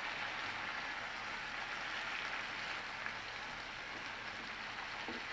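Chicken pieces and onions sizzling steadily in oil in a frying pan.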